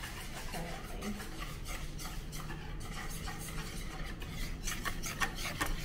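A hand whisk beating wet pumpkin pie filling in a bowl, its wires scraping and clicking against the bowl in quick, uneven strokes.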